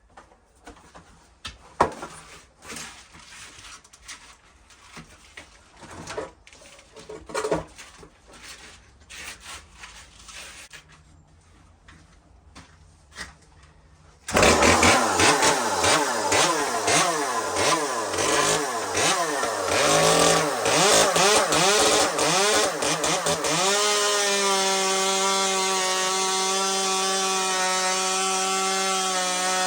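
A few light knocks and handling clicks, then about halfway through an Echo CS-2511 top-handle chainsaw's small two-stroke engine comes in suddenly and runs loud, its revs rising and falling for several seconds before it holds a steady high pitch near the end.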